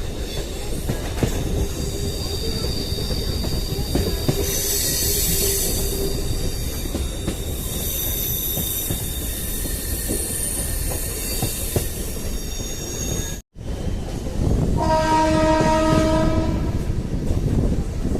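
MEMU train running through a sharp curve, its wheels squealing high against the rails over a steady rumble and clatter of the track. The sound drops out for a moment about thirteen seconds in. A few seconds later a train horn sounds for about two seconds.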